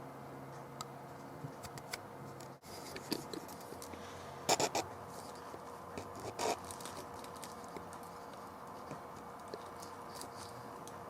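Scattered small clicks and taps of hands working on an iMac's RAM bay, with a quick cluster of three sharper clicks about four and a half seconds in and another click about two seconds later, over a steady low hum.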